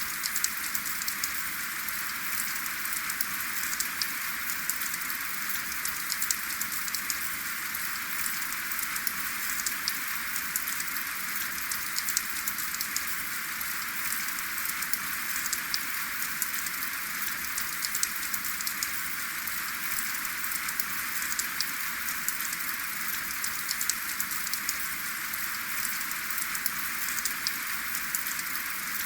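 Steady rain without thunder, with many fine drop taps over a constant hiss.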